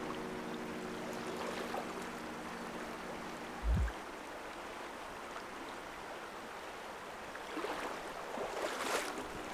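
Steady rush of flowing river water. Held notes of background music fade out over the first three seconds, and there is a single low thump a little under four seconds in.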